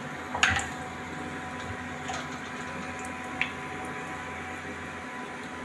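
Besan-coated bread pakoras deep-frying in mustard oil, a steady sizzle of bubbling oil as they are fried toward golden brown. A single knock sounds about half a second in, and a light tick a little past the middle.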